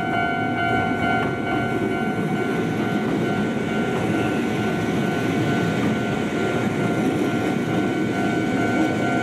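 A Japanese level-crossing alarm sounding its steady electronic warning tones while a train runs past with a dense rumble of wheels on rails.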